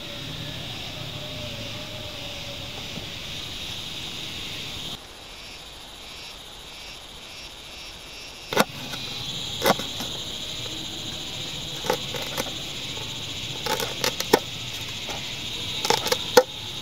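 Knife chopping a carrot against an aluminium mess tin lid: sharp knocks at irregular intervals through the second half, several in quick succession near the end. Insects shrill steadily underneath.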